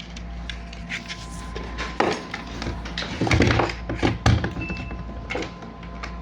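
Clicks, knocks and clunks from parts and tools being handled on a repair bench, loudest between about three and four and a half seconds in, over a steady low electrical hum. One short high beep sounds near the middle.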